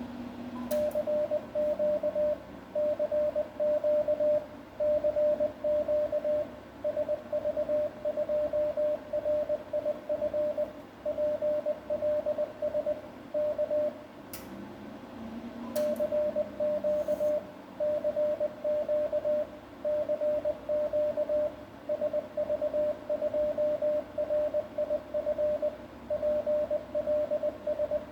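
Morse code sent in CW mode, heard as the transceiver's sidetone: one steady mid-pitched beep keyed on and off in dots and dashes. It comes in two long runs with a pause of about a second and a half in the middle, and a short click as each run starts and ends.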